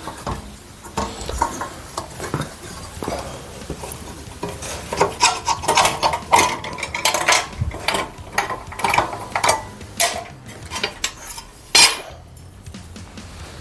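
Irregular clinking and clattering of light metal as an aluminum strap is bent up and handled, with one sharp clank near the end.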